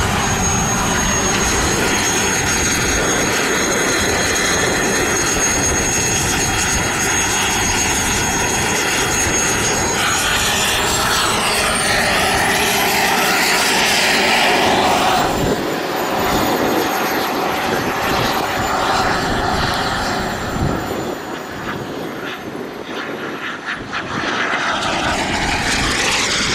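Small turbine engine of a radio-controlled model jet: a steady high whine for about ten seconds, then the whine climbs steeply with a louder rushing sound as the turbine spools up. It dips, rises again and falls away near the end.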